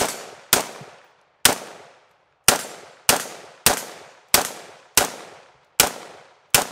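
Unsuppressed Brownells WWSD 2020 AR-15 rifle in 5.56 NATO fired semi-automatically: about ten shots at an uneven pace, roughly one every half second to a second, each with a short echo.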